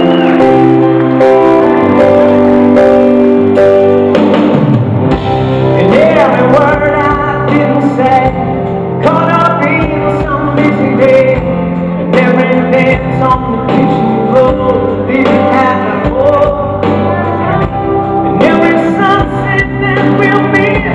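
Live pop-rock band playing: held keyboard and electric guitar chords with drums, and a male lead singer coming in about four seconds in, singing over the band.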